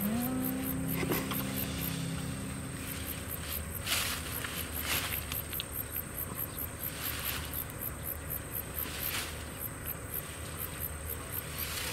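Insects chirping steadily in high, regular pulses, several a second. A few short rustles of leaves and stems come as kudzu flowers are plucked by hand. A low held note fades out in the first few seconds.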